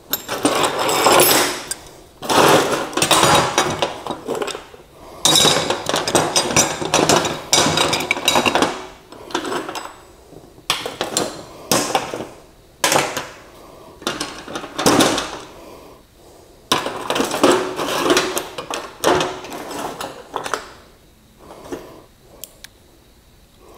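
Metal hand tools (wrenches, pliers, screwdrivers) clinking and clattering as they are handled, picked up and set down among each other. The sound comes in a series of bursts of knocks with short pauses between them.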